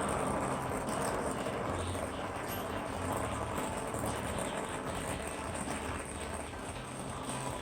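Torch flame burning with a steady hiss while heating copper joints for silver soldering, with background music and a pulsing bass line underneath.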